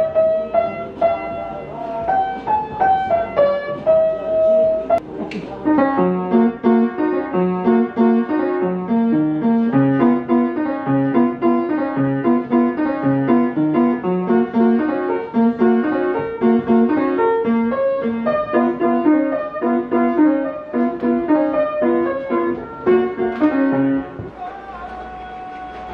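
Upright piano being played by hand: a slow, sparse melody at first, then from about six seconds a fuller passage of rolling chords under the tune. The playing stops near the end.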